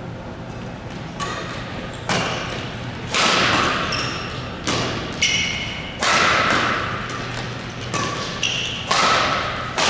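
Badminton rackets striking a shuttlecock in a fast doubles rally: about ten sharp cracks spaced a half-second to a second apart, echoing in a large hall.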